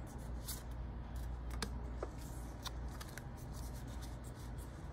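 Pokémon trading cards being slid and flicked one by one through the hands, a run of small dry clicks and snaps over a steady low hum.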